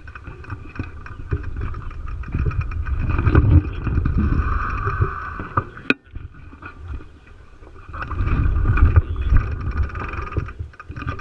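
Bike-mounted action camera rolling over cracked asphalt: low rumble of wind and road buffeting with rattling, swelling and easing twice, and a single sharp knock about six seconds in.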